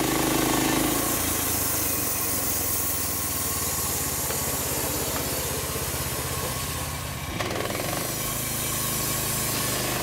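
Portable band sawmill cutting through a log: its 13-horsepower Briggs & Stratton petrol engine running steadily under load while the band blade saws, with a steady hiss of cutting over the engine hum.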